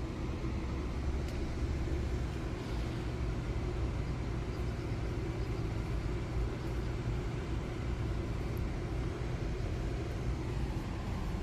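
Steady low rumble with a fainter hiss above it, even in loudness throughout.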